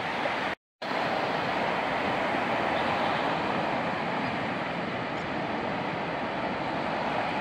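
Ocean surf breaking and washing up a sandy beach: a steady rushing hiss that drops out to silence for a moment just under a second in.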